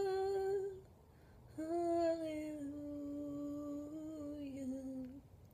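A young woman's unaccompanied voice holds the last note of a sung 'hallelujah' for under a second, then after a short breath hums one long note that steps gently down in pitch before fading out near the end.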